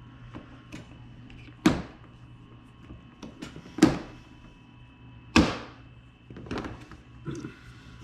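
Hand pop-rivet gun being squeezed to set an aluminum rivet, with three sharp snaps about two seconds apart, then a few softer clicks near the end.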